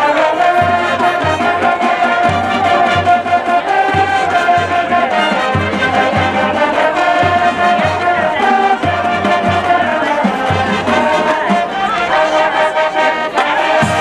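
Marching band playing, brass carrying the tune over a steady bass beat.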